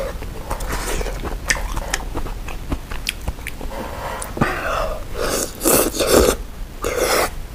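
Close-up eating sounds: chewing with small clicks, then noodles from a bowl of malatang slurped in several loud pulls from about four and a half seconds in.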